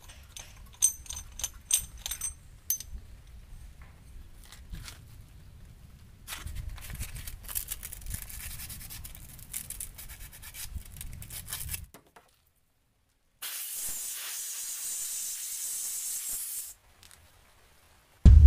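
Light metallic clicks and clinks of small parts and tools being handled over a car engine, then a steady hiss for about three seconds. A loud low rumble starts right at the end.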